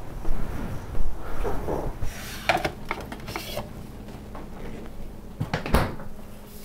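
Someone rummaging in a refrigerator: glassy clinks and rattles about two to four seconds in, then one sharp knock a little before the end.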